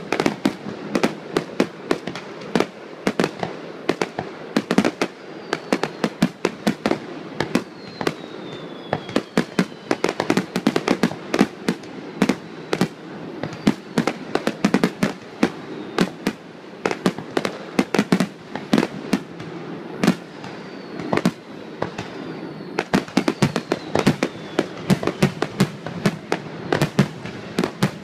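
Star mine fireworks barrage: shells bursting in a rapid, unbroken string of sharp bangs, several a second, with a faint falling whistle now and then.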